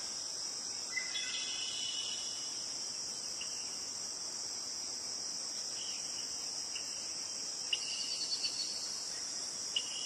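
A steady, high-pitched insect chorus, with a few brief chirps over it: one about a second in, a quick run of them near the end.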